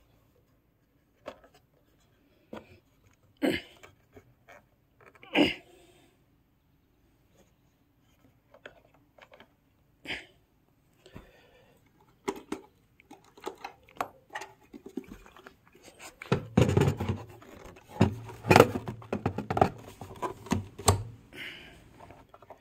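Handling noise from setting up a portable PA speaker with a built-in mixer: scattered clicks and knocks from the plastic cabinet, cables and knobs. They come thicker near the end, with rubbing and a low hum under them.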